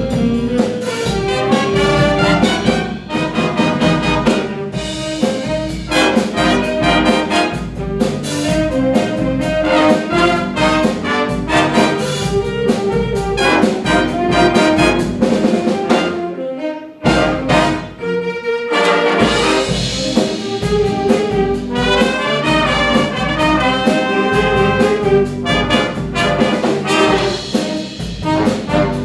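A school jazz band playing live: trumpets, trombones and saxophones over a steady beat. The music drops out for a moment a little past halfway, then carries on.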